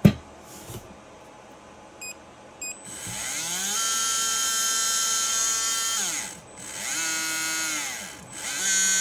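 A sharp click at the start, then two short beeps about two seconds in. From about three seconds a 13.5-turn brushless RC motor, spun by a motor analyzer running its test, winds up with a rising electric whine, holds a steady pitch, winds down and spins up again twice.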